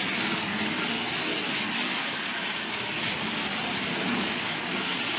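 Two Hornby OO gauge model locomotives, one a Caledonian Railways 0-4-0 saddle tank 'Pug', running together round the layout: a steady whir of their small electric motors and wheels on the track.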